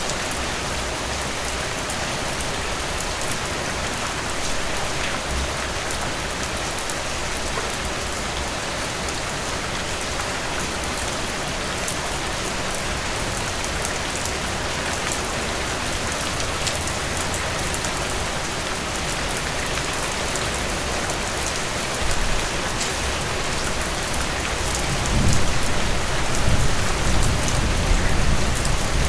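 Heavy rain falling steadily. About three-quarters of the way through, a low rumble of thunder sets in and grows louder toward the end.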